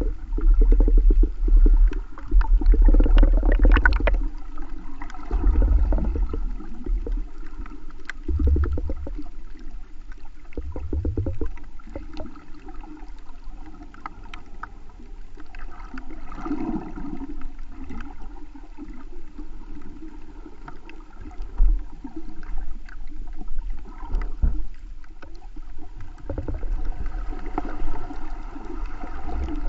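Underwater sound picked up by a GoPro camera in its waterproof housing: muffled water movement with heavy low rumbling bursts, strongest in the first dozen seconds, and faint crackling clicks throughout.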